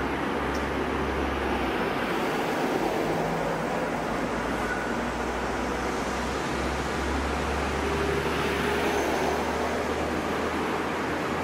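DB Class 633 diesel multiple unit moving past at close range, its diesel engine running with a steady low hum under the noise of the train.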